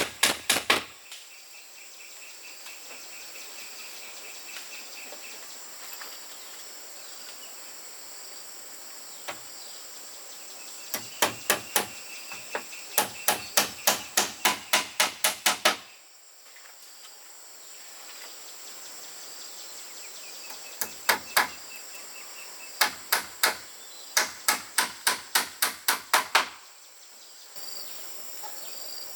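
Hammer strikes in quick runs of about three blows a second, stopping and starting again several times. A steady high drone of insects or cicadas runs underneath.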